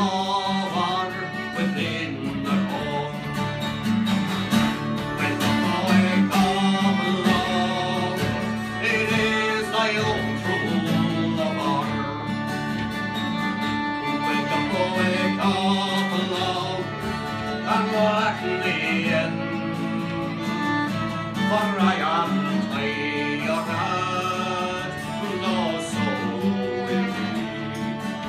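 Live Irish folk music: a fiddle playing the tune over a plucked string accompaniment.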